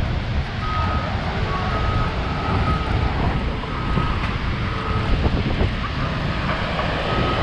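Steady rushing of a tall waterfall, Montmorency Falls' 84-metre drop, with wind rumbling on the microphone.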